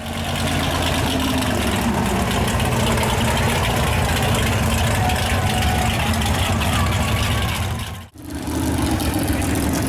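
Big mud truck engine running steadily near idle, under a broad hiss of open-air noise. The sound drops out briefly about eight seconds in, then comes back.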